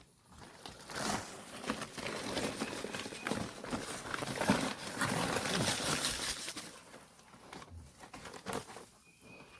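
Dry concrete mix being dumped from a bag into a fence-post hole around a 4x4 post: a gritty pouring rush with scattered clicks that lasts about six seconds, then tails off.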